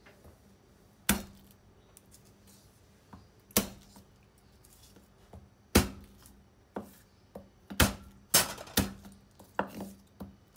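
Garlic cloves being smashed with the flat of a cleaver-style kitchen knife on a wooden chopping board: a series of sharp knocks at irregular intervals, bunching closer together near the end.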